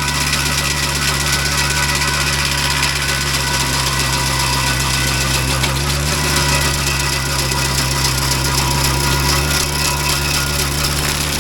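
Tractor engine running steadily under load, driving a PTO stump grinder's 24-inch carbide-toothed disc.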